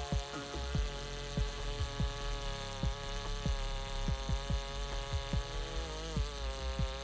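Gas chainsaw with a long bar running steadily under load while ripping a large log along the grain, its engine pitch dipping briefly about six seconds in, over a recurring low thumping.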